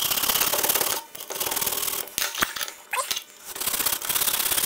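Hacksaw cutting into the plastic base of a compact fluorescent bulb, a rasping in back-and-forth strokes with short breaks, about one stroke a second.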